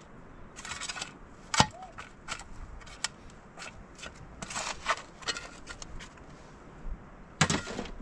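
Metal shovel scraping and knocking into dry, stony soil as dirt and gravel are dug and lifted, in a run of irregular scrapes and knocks with a sharp knock about one and a half seconds in.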